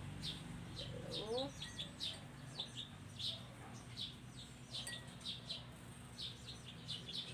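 Small birds chirping over and over, short high chirps coming a few times a second, over a steady low hum.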